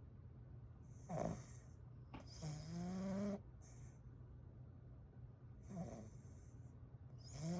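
Exotic Bully dog snoring in its sleep: two breaths about four and a half seconds apart, each a brief falling sound followed by a snore about a second long on a steady, slightly rising pitch.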